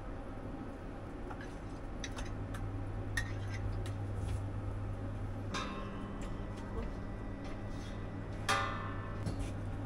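Food-truck kitchen work: light clicks and clinks of utensils and cookware over a steady low hum, with two brief noisy rushes about halfway through and near the end.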